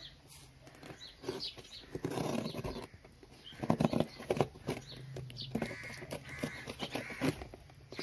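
A cardboard parcel being cut and torn open with a knife: scraping, tearing and sharp handling clicks, busiest about four seconds in. Birds call now and then in the background.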